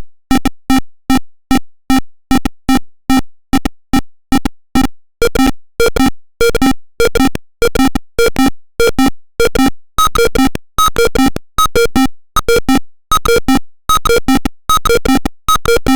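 Simulated piezo buzzer of an Arduino proximity alarm beeping repeatedly, a short decaying tone each time. The beeps come about twice a second, then faster and more irregularly from about five seconds in.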